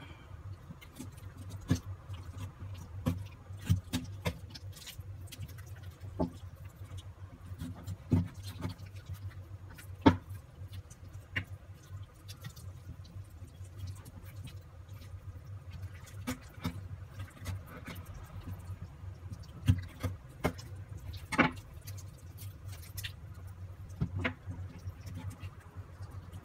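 Kitchen knife cutting raw lamb on a bamboo cutting board: irregular knocks and clicks of the blade and meat against the board, over a steady low hum.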